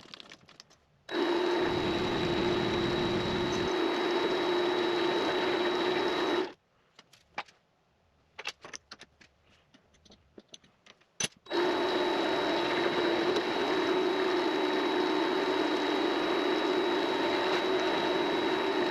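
Vevor MX400 mini lathe's spindle motor running with a steady whine, switched off about six seconds in. A few seconds of light clicks and knocks follow, then the lathe starts up again and runs on.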